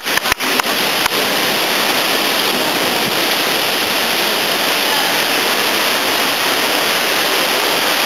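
Loud, steady rushing of sea surf surging against the rocks, with a few sharp clicks in the first second.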